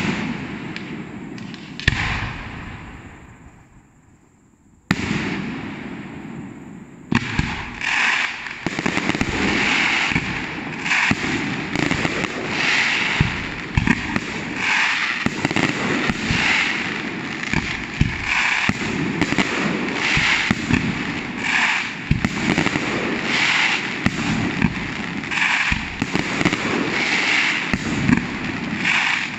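Aerial firework shells bursting: three single loud bangs in the first five seconds, each trailing away in a long rolling echo through the valley. From about seven seconds in, a dense, continuous barrage of rapid bangs and crackling.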